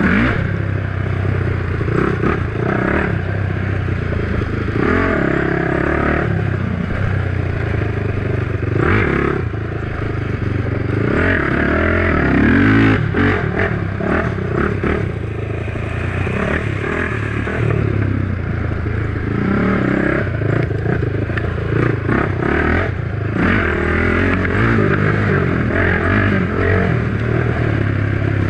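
Honda 450EX sport quad's engine running as it is ridden hard along a dirt trail, the engine note rising and falling with throttle throughout. Clattering and knocking from the machine over bumps runs alongside it.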